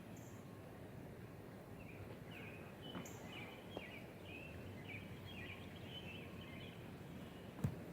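Birds calling in a quick series of short chirped notes, from about two seconds in until near the end, over a steady outdoor hiss during a thunderstorm. A single sharp knock near the end is the loudest sound.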